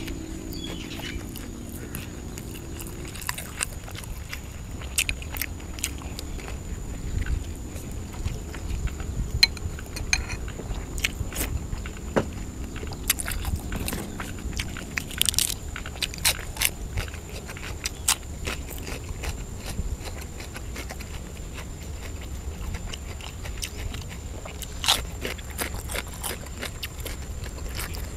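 Close-up chewing and biting of sausage: a steady run of wet mouth smacks and clicks, with a low steady rumble underneath.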